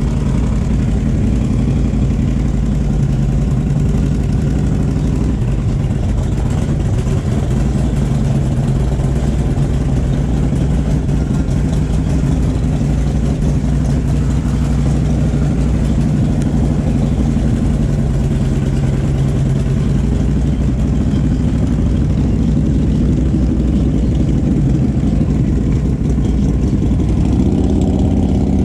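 Motorcycle engine idling steadily, its pitch rising a little near the end as the revs pick up.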